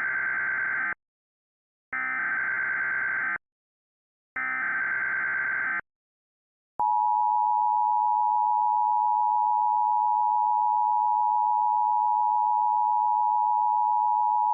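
Emergency Alert System SAME header: three bursts of digital data warble, each about a second and a half long, sent a second apart. They are followed about seven seconds in by the steady two-tone EAS attention signal (853 and 960 Hz), which is held to the end and marks the start of a new alert message.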